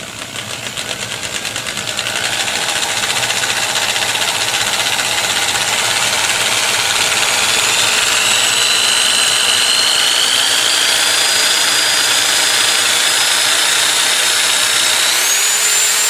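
Old Skil 3/8-inch corded electric drill running free with no bit load, its motor starting slowly and speeding up as the trigger is squeezed further. The motor whine climbs gradually in pitch and steps up sharply near the end.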